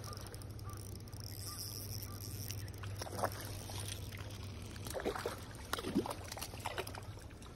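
A hooked trout splashing and thrashing at the water's surface as it is brought in to the landing net. There are several uneven splashes in the second half.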